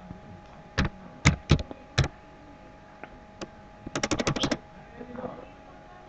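Keystrokes on a computer keyboard: a few separate key presses in the first two seconds, another around three and a half seconds, then a quick run of about eight presses around four seconds in.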